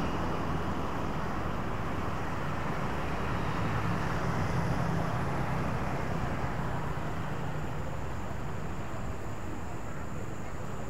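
Steady road traffic noise: cars and motorbikes driving along a city road. A low engine hum is strongest in the first half and eases off after about six seconds.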